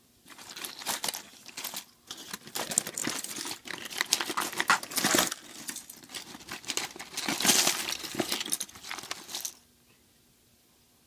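A hand rummaging through a cardboard box packed with loose electronic components, the small parts and their packaging rustling, crinkling and clattering against each other and the cardboard. It pauses briefly about two seconds in and stops shortly before the end.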